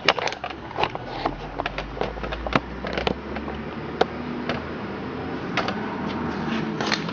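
Irregular clicks and knocks from an old Disston chainsaw bar and chain being handled, as the chain is worked around the bar to check a couple of tight spots, over a steady low hum.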